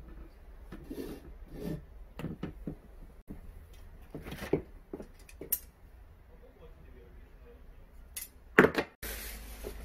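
Handling noises: scattered soft knocks and rustles as a potted geranium and thin plant-support stakes are handled, with the sharpest knock shortly before the end, followed by a steady hiss.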